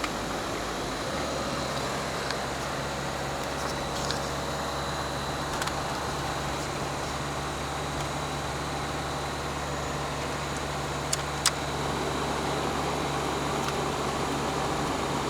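Car driving on a rough, snow-covered dirt road: a steady engine hum under even tyre and road noise, with one sharp click about eleven seconds in.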